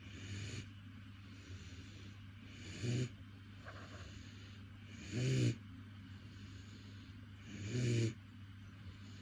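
Doberman puppy snoring in a deep sleep: four snores about two and a half seconds apart, each short, the later ones louder.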